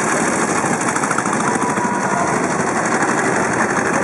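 Veteran motorcycle engines running at the starting line, a steady, rapid, even beat with no break.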